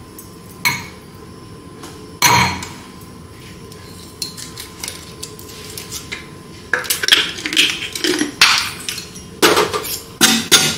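Spoon and kitchen dishes clinking and knocking: a loud knock about two seconds in, a few light clicks, then rapid clatter through the last four seconds.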